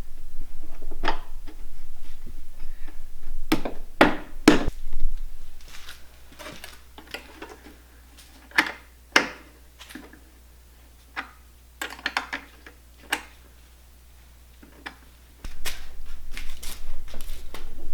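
Irregular clicks and knocks of small parts and tools being handled during reassembly of the snowmobile's carburetor intake. They are busy for the first five or six seconds, then thin out to scattered single clicks, and a steady low hum comes in near the end.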